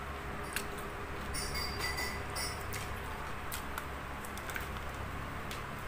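Close-up eating sounds of a rice-paper roll with crispy fried fish: wet chewing and faint mouth clicks, with a short crackly stretch about one and a half seconds in, over a low steady hum.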